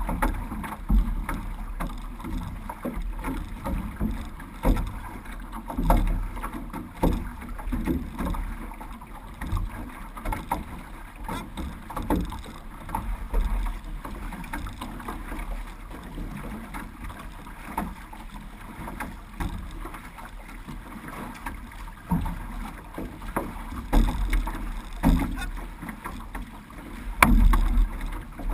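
Six-person outrigger canoe (OC6) under way: water swishing and splashing along the hull and wooden outrigger float, with paddle strokes pulsing about once a second.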